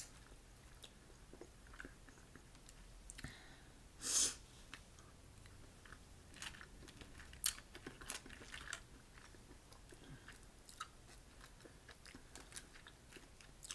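Faint chewing, with small cracks and clicks from boiled crawfish shells being peeled apart by hand. There is one louder, short crunchy burst about four seconds in.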